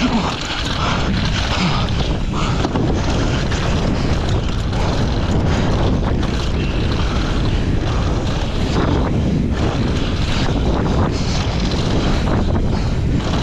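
Wind rushing over the microphone and tyres rolling over dry dirt and loose stones as a downhill mountain bike descends at race speed, with frequent knocks and rattles from the bike over the rough ground.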